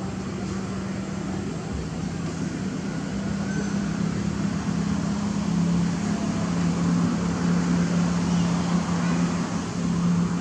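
A motor engine running steadily with a low hum that drops slightly in pitch about halfway through, over constant background noise.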